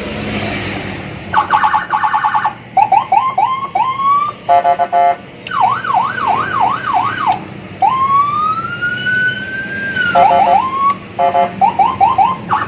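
Custom 'Landun' police-escort siren on a car, switched on for a test and cycling through its patterns: fast pulsing tones, short rising chirps, a quick up-and-down yelp, then one long wail that rises and slowly falls, then chirps again.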